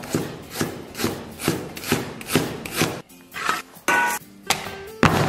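Chinese cleaver slicing ginger on a wooden cutting board, in quick knocks of the blade on the wood, about three a second. After about three seconds the chopping stops, and a few quieter knocks and a brief metallic ring follow as a stainless bowl is handled.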